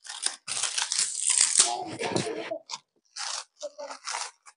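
Handling noise from a metal-and-plastic spotlight fitting being turned and pulled apart by hand: a run of short scraping, crinkling rustles.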